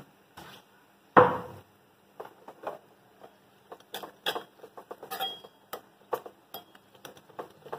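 Steel spoon stirring a tadka in a small metal pan, with irregular light clinks and scrapes of metal on metal. One louder knock sounds about a second in.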